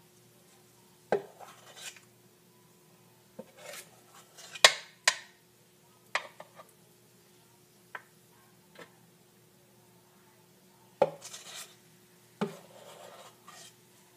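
Spoon clinking and scraping against a stainless steel mixing bowl and a metal muffin tin while scooping batter: scattered sharp clinks, the loudest about five seconds in, with soft scraping between.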